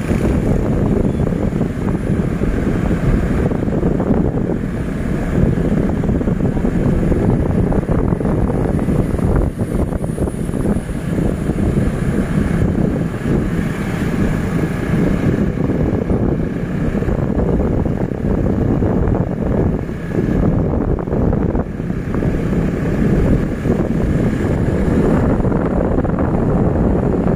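Steady wind rumble on the microphone over the running noise of a moving vehicle.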